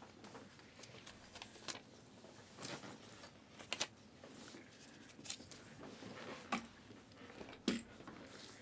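Trading card packs and cards being handled: faint rustling and sliding with scattered light clicks every second or so, the sharpest one near the end.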